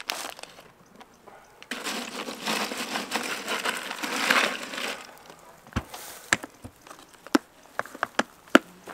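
Hand digging through the contents of a camp cooler: a dense, crunching rattle for about three seconds. Then a run of sharp knocks and clicks as the lid is shut and a drink can is handled.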